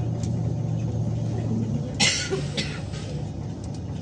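Scania OmniLink city bus engine idling steadily, heard from inside the cabin. About two seconds in, a short sharp burst of noise rises over the hum and fades within about half a second.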